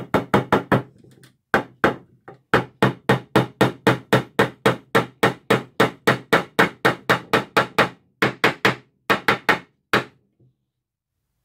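Combination staple puller and fencing pliers used as a hammer, tapping a small staple home: a long run of sharp strikes, about four a second, with a few short pauses, stopping about ten seconds in.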